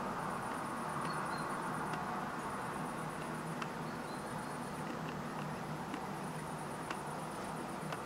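Steady background ambience: a faint hiss with a fast, high-pitched pulsing trill, a few faint short chirps and several light clicks.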